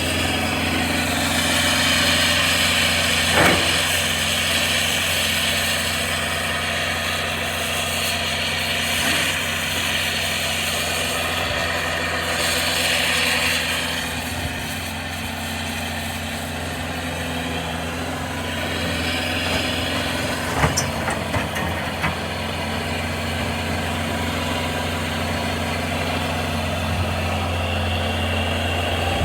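Kubota SSV55 skid steer's diesel engine running steadily at idle, with a few brief knocks a few seconds in and again about two-thirds of the way through.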